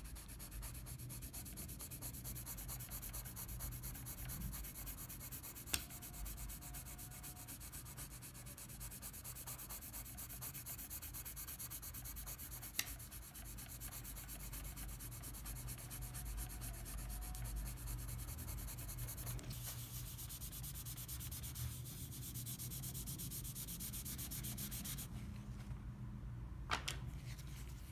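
A soft 6B graphite pencil shading on paper: a continuous fast, scratchy rubbing of many quick strokes, with three sharp clicks. The scratching drops away near the end, as the shading gives way to blending.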